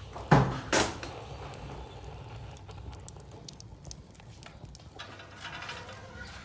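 Dry stalks and straw burning in the firebox of a wood-fired stove, crackling faintly with scattered small clicks. Two sharp knocks come in quick succession less than a second in, and there is some rustling near the end as more stalks are pushed in.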